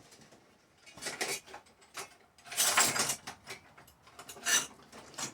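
Small metal parts and tools being handled on a workbench: rattling and clinking in a few short bursts, the longest and loudest about three seconds in.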